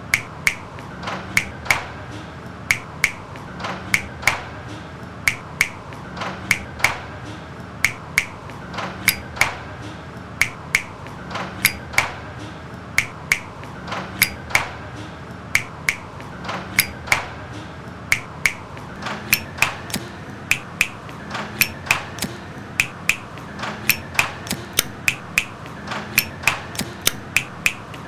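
A looped rhythm built from sharp clicks and snap-like taps, with a soft low thump repeating about every second and a half. The pattern grows busier near the end.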